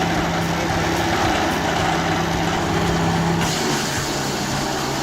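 Engine of a heavy machine running steadily, a low even hum, with the sound changing abruptly about three and a half seconds in.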